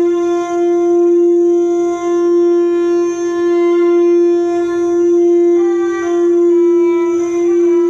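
A reed or wind instrument holding one steady drone note, with higher notes above it that shift a couple of times and a slight regular swell and dip in loudness.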